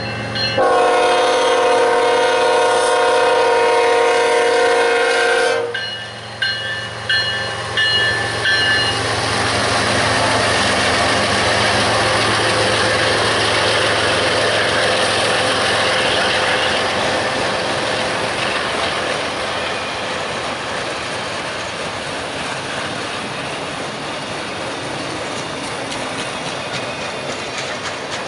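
BNSF diesel locomotive's air horn sounds one long chord blast of about five seconds at a grade crossing, over the engine's low running. The crossing bell dings briefly after it, then the autorack freight cars roll past with wheel clatter that slowly fades.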